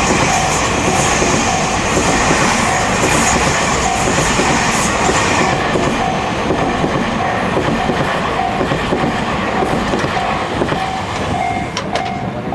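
A Tobu Noda Line electric train passing over a level crossing, its wheels clattering loudly, while the crossing bell rings a steady repeating 'kan-kan' tone. The train noise eases in the second half and the bell stops near the end.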